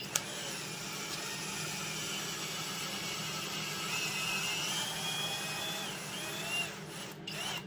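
Kobalt cordless drill running with its bit working inside the bore of a cast-iron pulley, a grinding scrape over a motor whine that rises and falls in pitch. The run stops near the end, followed by one short burst.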